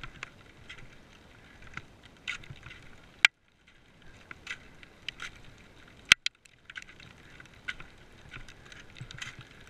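Ice axe picks and crampon points biting into firm snow on a steep climb: a run of short crunches and scrapes, with two sharp, louder metal strikes about three seconds apart.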